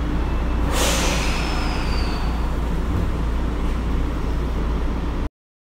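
Tokyo Metro 02 series subway train standing at the platform, with a steady low hum and a sharp burst of hiss about a second in that fades over the next second. The sound cuts off abruptly near the end.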